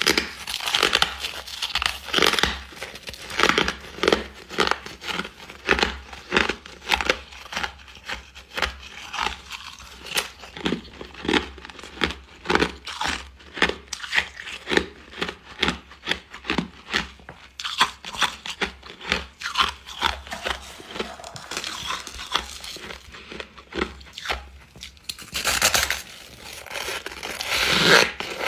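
Close-miked chewing of refrozen freezer frost: a quick run of crisp, crackly crunches, about two to three a second, louder near the end.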